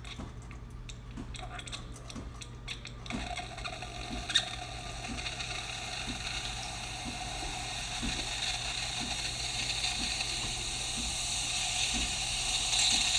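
DeLonghi Perfecta espresso machine making steam: the pump clicks and ticks in a steady rhythm about twice a second, and from about three seconds in a steam hiss starts and grows louder. Strong, steady steam after a service, a sign that the steam system is working properly.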